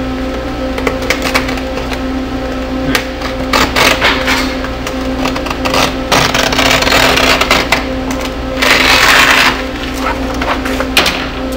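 Plastic film crackling and rustling in several bursts as the release liner is peeled back from perforated vinyl window film, the loudest burst about three-quarters of the way through, over a steady hum.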